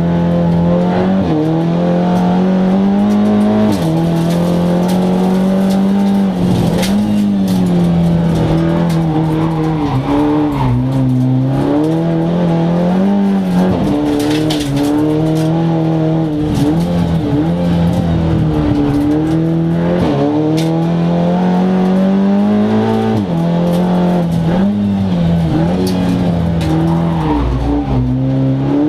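SEAT Leon Cup race car's turbocharged four-cylinder engine heard from inside the cabin, pulling hard and repeatedly rising in pitch, then dropping back at each gear change or lift off the throttle. Sharp clicks and knocks come through over it.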